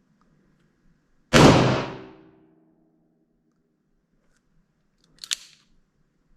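A single revolver shot, loud and sudden, with the report ringing and dying away over about a second in the indoor range. A short sharp click follows about four seconds later.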